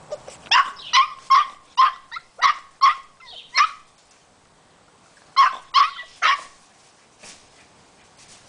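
Eight-week-old boxer puppy barking in short, high yips: a run of about eight, roughly two-fifths of a second apart, then a pause and three more.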